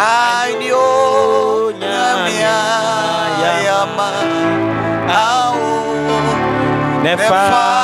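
A man singing a slow gospel worship song over an electronic keyboard, drawing out long, wavering notes between phrases.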